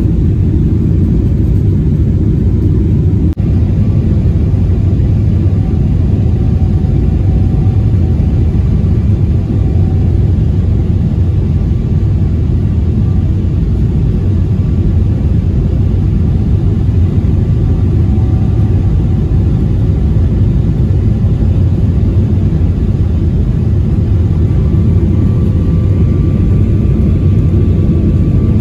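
Jet airliner cabin noise on final approach: a steady low roar of the engines and rushing air, with faint steady whines, the flaps and landing gear down. There is a brief dropout about three seconds in.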